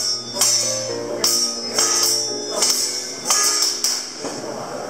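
Background music: a melody over a steady beat of jingling percussion, about two beats a second.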